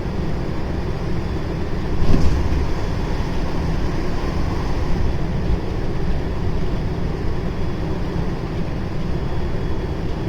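JR West 223 series 0-subseries electric train running, heard from on board: a steady low rumble of wheels and running gear, with a brief louder rush about two seconds in.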